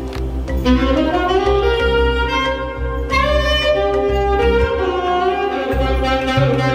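Saxophone playing a smooth, jazzy melody of rising and falling phrases, sliding up into its first phrase, over a backing track with a steady bass line.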